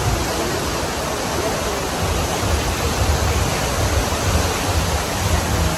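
Artificial waterfall cascading down tiers of rock into a pool: a steady, even rush of falling water.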